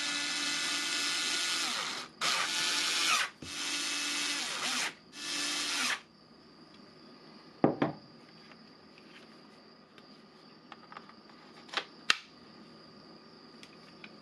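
AEG BS 12 C2 12 V cordless drill-driver running free in four short trigger pulls over about six seconds, the first the longest: the freshly reassembled drill works. A sharp knock and a few clicks follow later.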